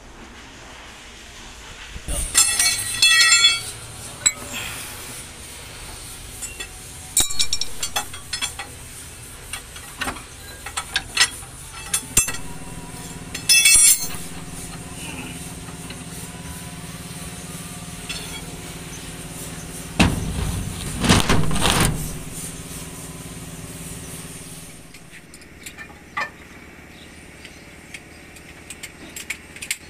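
Steel truck leaf-spring parts and hand tools clanking and clinking in several bursts of sharp, ringing metal knocks, with a steady mechanical hum through the middle and a louder noisy burst lasting about two seconds.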